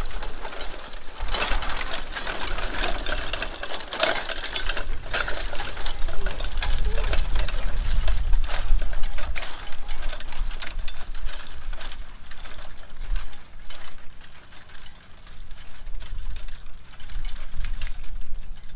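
Metal harness hardware and a horse-drawn riding plow rattling and clinking rapidly as a team of draft horses pulls the plow, busiest in the first few seconds, over a low rumble.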